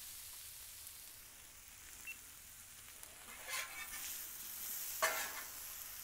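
Potato and bacon hash sizzling on a Blackstone steel flat-top griddle, with a steady hiss. A metal spatula scrapes through it twice in the second half.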